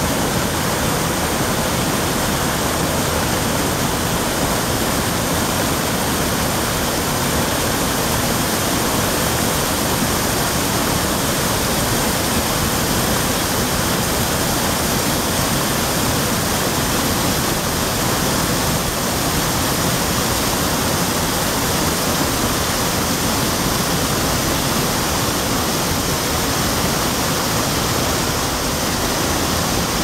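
Waterfall and cascading stream water rushing steadily at a constant level.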